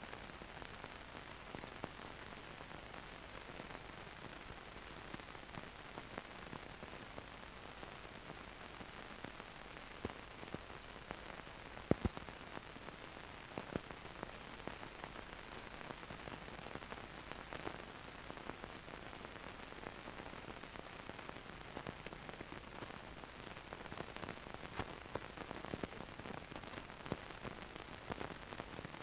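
Faint steady hiss with scattered crackles and pops, the loudest pop about twelve seconds in: the background noise of an old film or videotape soundtrack, with no music or voice.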